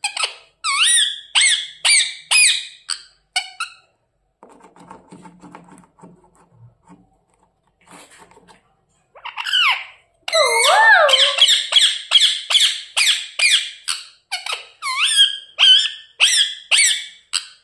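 Pet parrot making rapid, repeated squeaky calls, about two to three a second, each a quick sweep in pitch. This is the fussing 'gussu gussu' sound, an angry grumble. The calls stop for about five seconds in the middle with only faint rustling, then resume in a longer, denser run.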